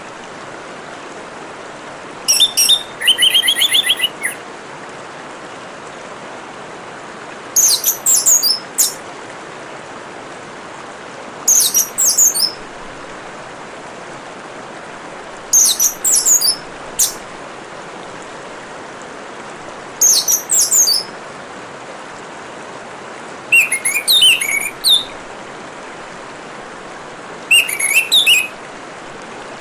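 Orange-headed thrush singing short, high, warbling phrases, repeated about every four seconds, over a steady trickle of running water.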